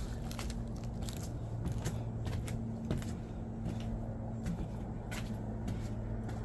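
Scattered light clicks and rustles over a steady low hum.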